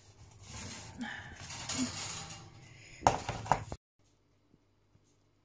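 Round metal cake pan scraping across the oven's wire rack as it is pulled out, then two sharp metallic clanks about three seconds in. The sound cuts off suddenly just before four seconds.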